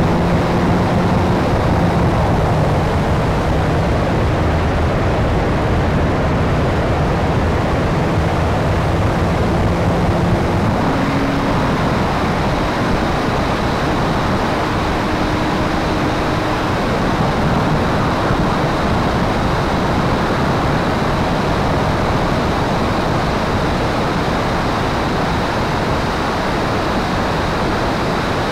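Steady rush of wind over the onboard camera of a model P-51 Mustang in flight, mixed with the drone of its motor and propeller.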